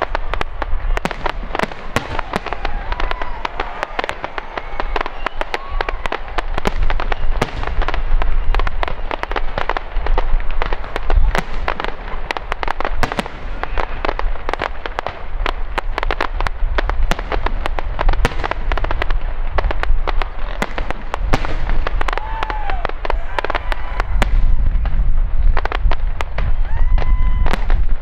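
Fireworks display: a dense, unbroken string of bangs and crackling over low booms, swelling louder twice.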